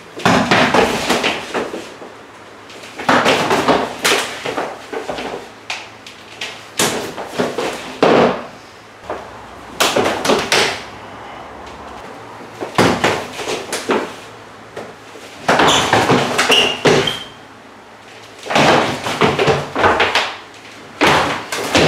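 Two people drilling close-range kung fu entries: quick flurries of slaps and thuds as hands and forearms strike and block, with feet stamping and shuffling on a wooden floor. The flurries last a second or two each and come about eight times, with short pauses between them.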